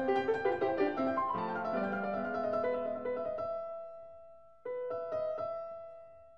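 Background piano music: a busy run of notes that dies away over a few seconds, then a sparer phrase of repeated notes that starts suddenly and fades.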